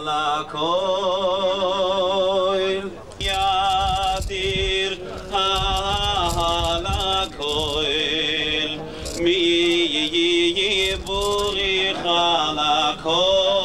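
A man singing a slow, chant-like melody with strong vibrato, holding long notes that change every second or two.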